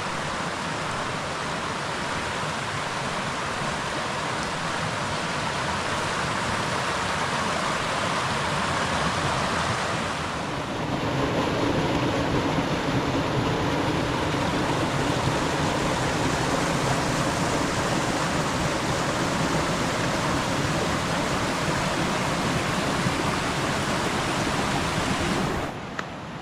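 Rain-swollen mountain stream rushing over rocks in small cascades, a steady dense rush of water. About ten seconds in it briefly dips and comes back louder and deeper, then drops off suddenly near the end.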